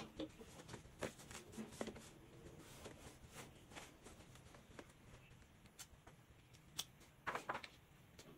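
Faint rustling and light taps as hands smooth a football shirt flat on a heat press and lay a transfer sheet over it, with a short cluster of sharper clicks about seven seconds in.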